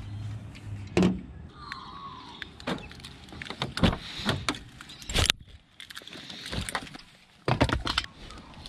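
Car door being unlatched and opened: a series of sharp clicks and knocks from the handle and latch, the loudest about five seconds in, over a low steady hum.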